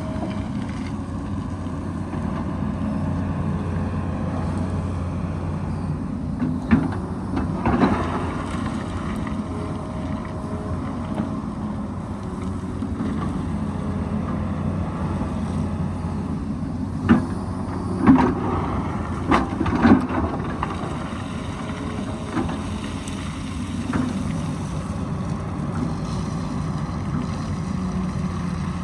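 Excavator's diesel engine running steadily, with several sharp knocks and clanks of the bucket working rock, mostly in two clusters.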